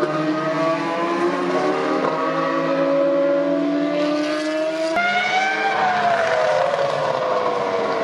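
Open-wheel racing car engines accelerating out of a corner, their pitch climbing slowly for about five seconds. After a sudden cut, a Toro Rosso Formula 1 car's engine passes by, its note rising briefly and then falling away.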